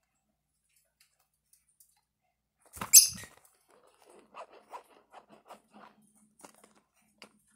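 A small white parrot gives one short, shrill squawk about three seconds in, then its feet make soft scratching ticks on a woven canvas bag as it walks across it.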